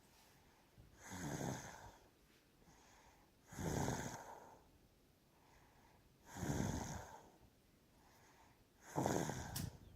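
Snoring in a steady rhythm: four loud snores, one about every two and a half to three seconds, with quiet breathing in between.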